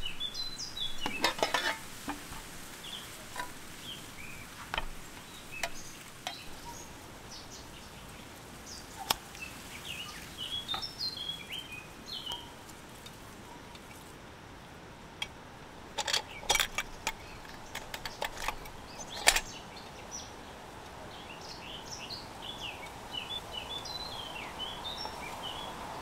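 Scattered clinks and knocks of a metal hurricane oil lantern being handled and lit: a cluster about a second in and another between about sixteen and nineteen seconds in, the last the sharpest. Small birds chirp throughout over a steady background hiss.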